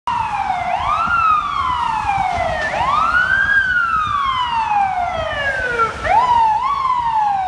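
Fire engine's siren wailing: the pitch climbs quickly and then winds slowly down, three long sweeps, then two short quick ones about six seconds in, over a low rumble of traffic.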